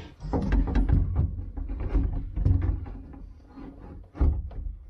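A heavy Victron inverter being worked by hand into a tight compartment: irregular knocks, bumps and scrapes as its case shifts against the surrounding panels, with several heavier thumps.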